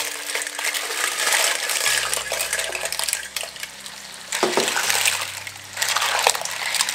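Clams in their shells tipped into a hot oiled wok and stirred with a spatula: the hard shells clatter and click against each other and the pan over the sizzle of frying oil and garlic.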